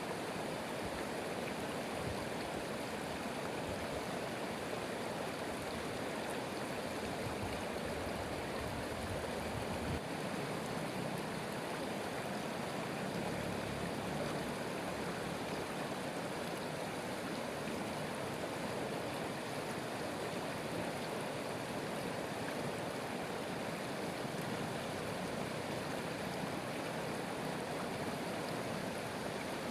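A stream of flowing water, rushing steadily and evenly.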